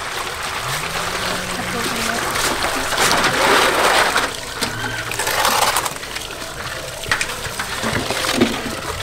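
Water scooped with a ladle and poured splashing into steel basins, with hands sloshing meat in the water; the pouring is loudest in the middle.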